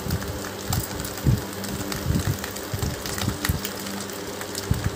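Thick wet spice paste being smeared by hand over boiled eggs, in soft, irregular squelching smacks, with a light sizzling crackle of mustard oil heating under the banana leaf in the pan. A steady low hum runs underneath.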